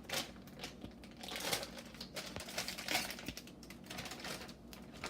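Plastic bag of cheese being pulled open and handled, crinkling in quick irregular crackles.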